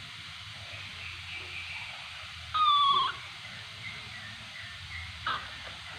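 Baby macaque giving one high, slightly falling squeak about half a second long a little over two seconds in, then a brief faint squeak near the end, over a steady faint hiss.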